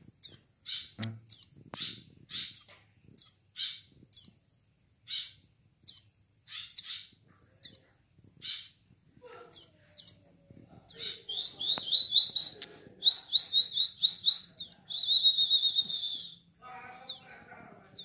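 Young ciblek sawah (plain prinia) calling: sharp high chirps, each dropping quickly in pitch, about two a second, then from about eleven seconds in a fast, rattling run of chattering chirps lasting some five seconds.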